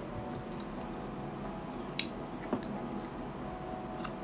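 Eating sounds from slices of unripe carabao mango: faint squishy chewing, with sharp clicking bites about two seconds in and again near the end, the second as a slice is bitten.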